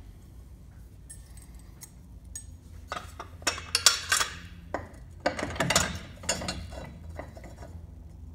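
Metal parts of a prototype aircraft wheel jack clinking and clanking as they are handled and fitted together: a quick run of sharp metal knocks and rattles, thickest from about three to seven seconds in.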